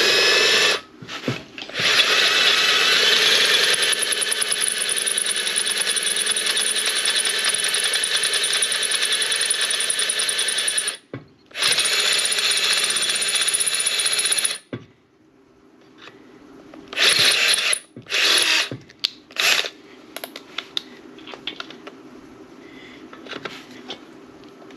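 Milwaukee power drill running a 7/16-inch bit into a cast-iron engine block. It runs in long steady stretches with brief stops about a second in and about 11 seconds in. After about 15 seconds there are only a few short bursts.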